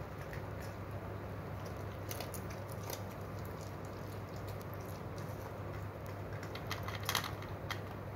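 Poodles eating kibble and vegetables from metal bowls: scattered small crunches and clicks, busiest near the end, over a steady low hum.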